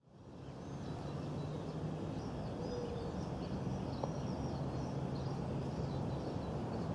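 Outdoor lakeside ambience fading in over the first second: small birds chirping repeatedly over a steady low hum.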